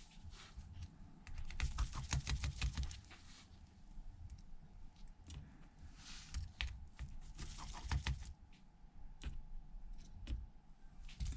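Irregular light clicks and taps of precision tools and tiny screws on an iPhone's internal metal plate, as its screws are taken out and set down. The clicks come in small clusters.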